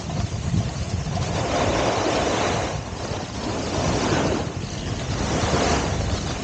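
Wind rushing over the microphone mixed with the hiss and scrape of sliding down a ski run through wet spring slush, swelling and easing every second or two.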